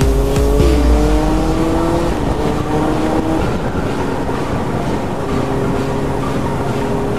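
Honda CBR600F inline-four engine pulling hard, its note rising steadily over the first three seconds, then easing and running at a steady cruising note. Heavy wind rush and buffeting on the microphone run underneath.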